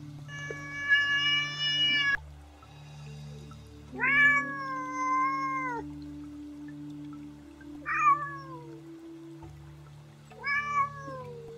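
Domestic cat meowing: four separate meows a couple of seconds apart, the longest about two seconds, most of them falling in pitch at the end. Faint steady background music underneath.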